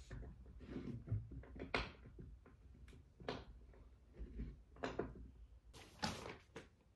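Faint, scattered clicks and light knocks of a metal hex key turning a bolt into the underside of an office chair seat during assembly.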